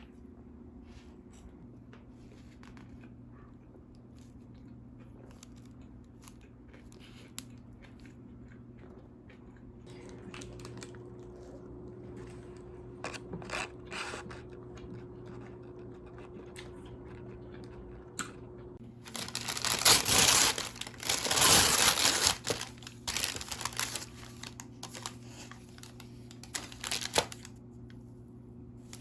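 Scattered small clicks and knocks over a faint steady low hum, then, about two-thirds of the way through, a few seconds of loud crinkling and tearing that tails off into lighter rustles.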